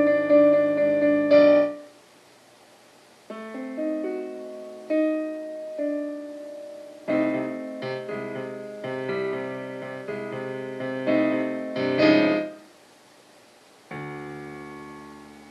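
Solo piano music playing in short phrases of chords, breaking off into brief silences twice; near the end a single chord is struck and left to fade.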